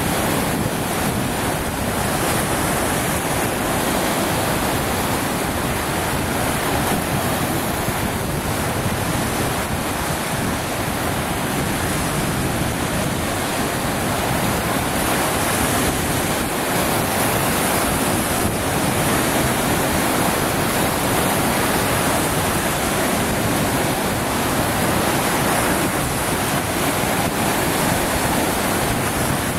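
Lake Superior waves breaking and washing over a low shoreline rock, a steady surf wash with wind blowing on the microphone.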